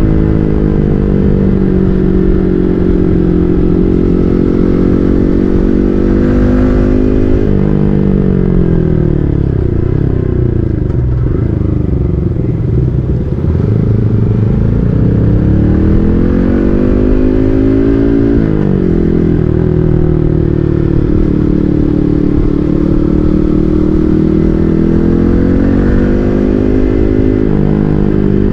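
Yamaha MT-15's 155 cc single-cylinder engine through an SC Project full-system exhaust, heard while riding. It holds a steady cruise, its note falls away off the throttle about a quarter of the way in, climbs again under acceleration, drops once more about two-thirds through, then rises and settles into a steady cruise.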